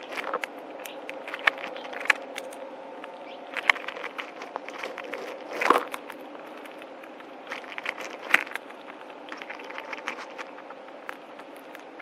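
Eastern gray squirrel cracking and chewing seeds up close: irregular sharp crunches and clicks, loudest a little before six seconds in and again past eight seconds, over a steady faint background hum.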